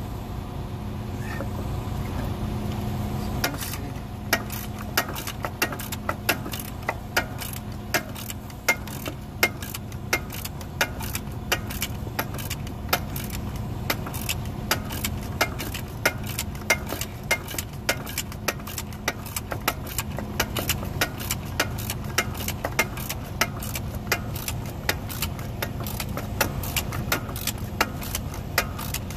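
Ratchet wrench clicking in quick, even strokes, about three or four clicks a second, as a nut is run down on the mounting stud of a new air spring. The clicking starts about three and a half seconds in, over a steady low hum.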